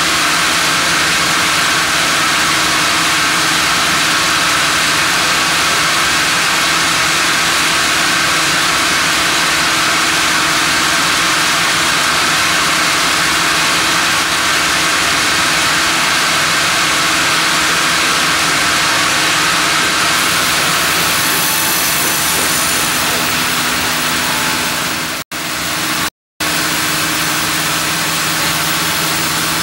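Sawmill machinery running steadily: the band saw and the hydraulic log carriage's motors, a constant mechanical hum with a few steady tones, as the carriage moves a log up toward the blade. The sound cuts out briefly twice near the end.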